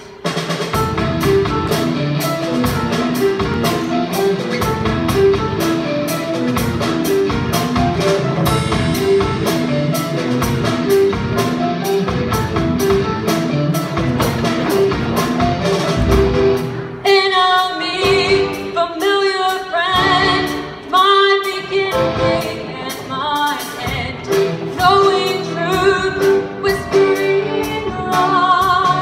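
Show choir performance: an instrumental opening with a steady, driving beat, then the choir's singing voices come in over it about 17 seconds in.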